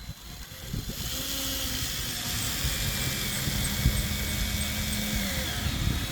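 Power drill driving a screw into a wooden step board, starting up just after the beginning and running steadily with a motor whine.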